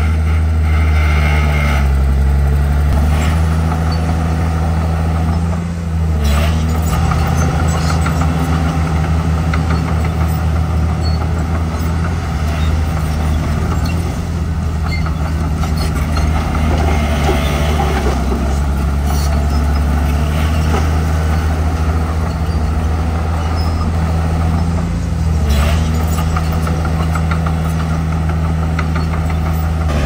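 Heavy diesel engines of a crawler bulldozer and dump trucks running loud and steady, the engine note dipping and recovering briefly a few times as the load changes.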